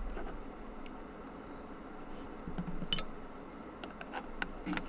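Scattered small clicks and clinks of lock pins and a pick or tweezers being handled, one light clink about three seconds in ringing briefly.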